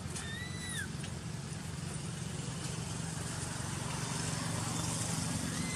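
Two short, high coos from a baby macaque, each rising and then falling in pitch, one near the start and one at the end, over a steady low engine hum.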